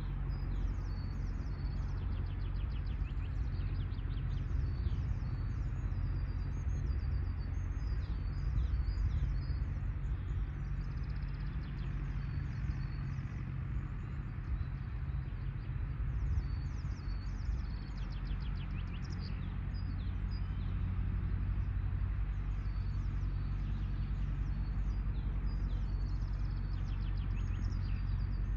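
Distant IHC 844 AS tractor's diesel engine running steadily under load as it pulls a meadow roller, a low even drone. A bird sings short chirping phrases over it again and again.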